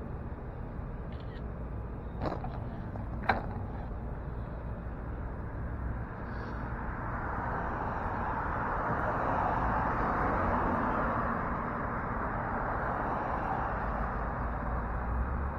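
City street traffic noise, a steady rush that swells for a few seconds around the middle as a vehicle goes by. Two sharp clicks, about two and three seconds in.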